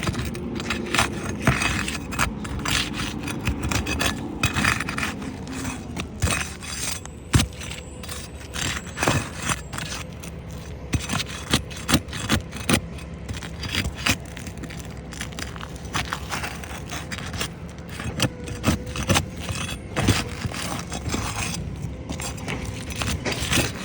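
Steel shingle bar scraping and prying under old asphalt shingles to break their seal, with irregular scrapes and sharp clicks. The shingles are so brittle they tear and crumble rather than unseal.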